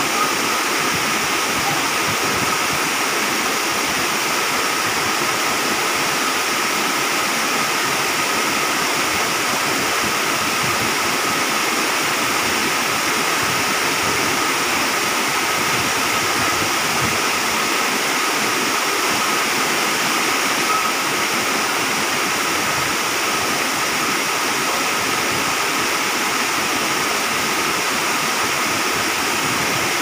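Wide curtain waterfall pouring in many thin strands down a cliff into a rocky pool, with rapids over rocks: a steady, even rush of falling and running water.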